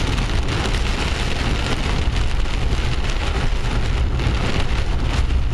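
Heavy rain beating on a car's roof and windshield, heard from inside the cabin while driving, over a steady low rumble of the car on the wet road.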